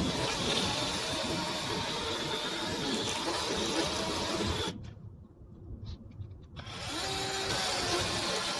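Battery-powered chainsaw running with a steady electric motor-and-chain noise. It stops for about two seconds just past the middle, then runs again.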